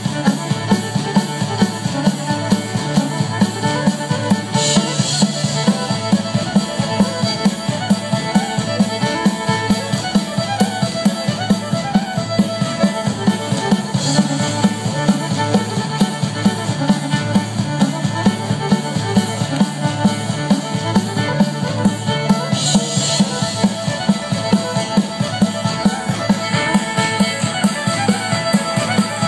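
Live band with fiddle and drum kit playing a fast dance tune to a steady, even beat, amplified over an outdoor stage PA for a square-dance troupe. Short bright splashes, like cymbal crashes, come through three times.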